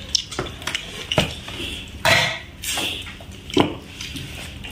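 Stainless-steel serving spoon clinking and scraping against steel bowls and plates as food is served, with a string of sharp clinks, a longer scrape about two seconds in, and the loudest clink about three and a half seconds in.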